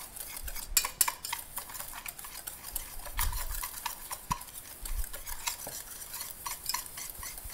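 Wire whisk stirring a dry spice rub in a stainless steel bowl: steady scraping with many quick, irregular clicks of the wires against the metal.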